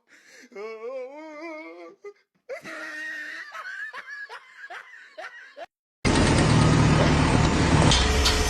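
A person laughing and giggling, then a sudden cut about six seconds in to loud, steady machine noise, like a running engine.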